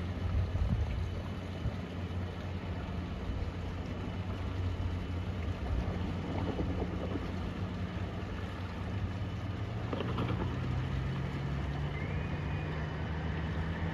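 The San Cristoforo car ferry's diesel engines run with a steady low drone as the ferry manoeuvres into port. About ten seconds in, the engine note begins to rise slowly as the revs climb.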